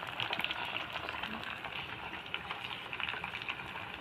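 Fritters frying in hot oil: a steady, dense crackling sizzle of many tiny pops.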